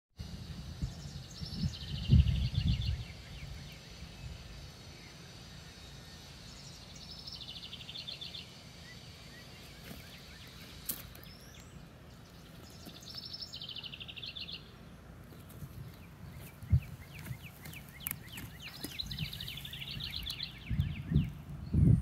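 A songbird repeating a short, high trilled phrase that steps down in pitch, four times about six seconds apart. Low rumbles near the start and the end.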